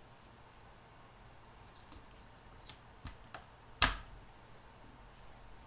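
A few small, sharp clicks and taps from handling small plastic parts, the loudest about four seconds in, as the battery-powered sound module is worked on.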